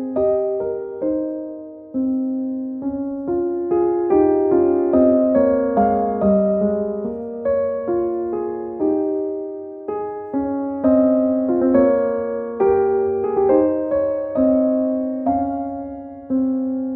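Background music: a gentle piano melody of single struck notes, each dying away.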